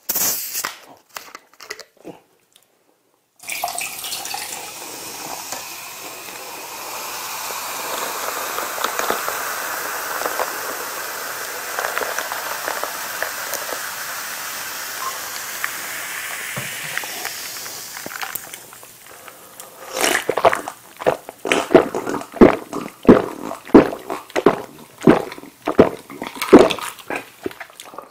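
Cola poured from a plastic bottle over ice in a glass, a steady fizzing pour lasting about fifteen seconds. About twenty seconds in, loud wet slurping and chewing begin as glass noodles from spicy tteokbokki are eaten.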